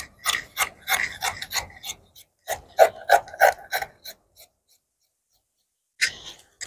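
Scissors snipping through printed fabric in quick strokes, about four cuts a second, in two runs that stop about four and a half seconds in.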